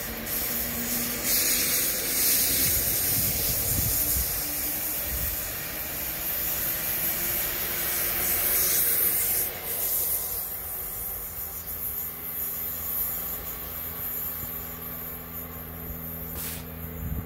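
Electric multiple unit passing close by, a steady rushing hiss and rumble of wheels on rail, fading after about ten seconds as it draws away and leaving a quieter low steady hum. One sharp click near the end.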